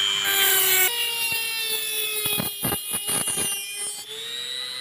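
Mini rotary tool (die grinder) running at high speed with a thin abrasive cut-off wheel, cutting through a steel nail: a high whine, with a gritty grinding hiss and scattered ticks from about one to four seconds in while the wheel bites. The pitch climbs near the end as the cut frees.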